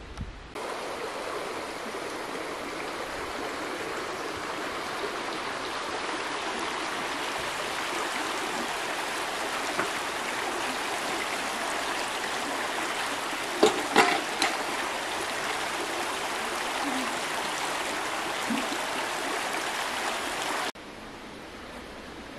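Shallow stream running over stones, a steady rushing and trickling of water that cuts off suddenly near the end. A few sharp knocks come about two-thirds through, likely the metal pots being handled at the water's edge.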